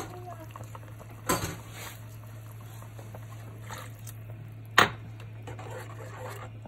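Boiling water poured from a glass into a saucepan of tomato sauce, with two sharp knocks against the pan, the louder one nearly five seconds in, over a steady low hum.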